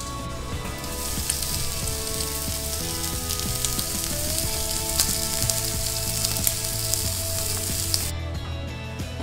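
Meat sizzling on the hot grate of a gas grill, a steady hiss with scattered crackles and pops. It starts about a second in and cuts off suddenly near the end. Background music with held notes plays underneath.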